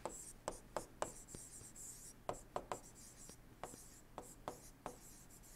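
Faint handwriting with a stylus on a tablet screen: irregular sharp taps and clicks as the pen strokes letters, with a light scratchy hiss during the first couple of seconds.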